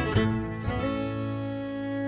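Closing bars of acoustic string-band music: the playing stops on a final chord, strummed on guitar, that is held and rings out.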